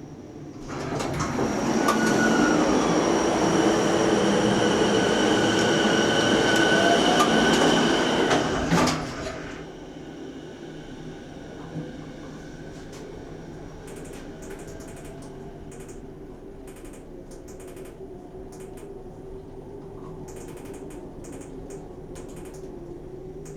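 A train passes for about eight seconds with a steady high whine, then fades. From about twelve seconds in, a 1997 Daikō hydraulic elevator travels with a steady low hum, broken by irregular short bursts of abnormal noise, a sign of the ageing elevator.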